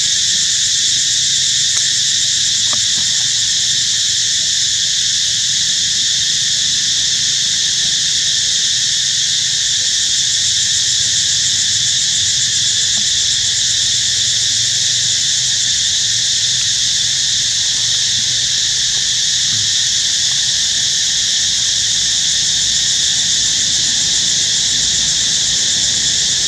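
Loud, steady chorus of insects, an unbroken high-pitched buzzing drone.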